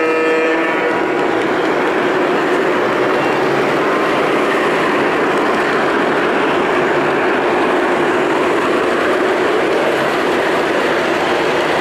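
Lionel O-gauge model of a Pennsylvania Railroad Centipede diesel locomotive running along the layout's track, making a steady rumble of motors and wheels on the rails. Its horn, a chord of steady tones, cuts off within the first second.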